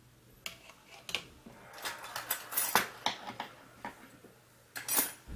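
Irregular light clicks and taps of small hard plastic and metal parts being handled on an open laptop, about eight in all, with the loudest near the middle and one near the end.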